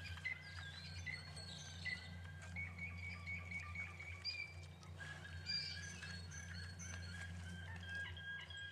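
Faint birdsong: several birds chirping, with short calls and a few held whistled notes, over a steady low hum.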